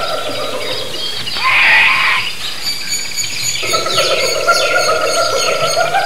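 Rainforest soundscape: a dense chorus of animal calls, with several steady calls layered over many short high chirps. A short hiss-like burst just under two seconds in is the loudest moment, and a lower steady call drops out about a second in and comes back at about three and a half seconds.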